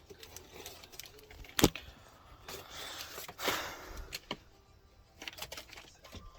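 Scattered clicks, knocks and rustling of a weather radio being picked up and handled after it fell over, with one sharper knock about one and a half seconds in.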